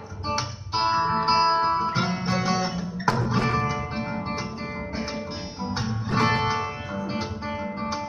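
Solo acoustic guitar played fingerstyle: plucked melody notes over chords, with frequent sharp strummed accents.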